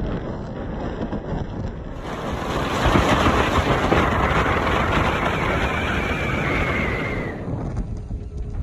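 Dust-storm wind rushing and buffeting the microphone, growing loudest a few seconds in, with a faint high whistle over it before the wind eases near the end.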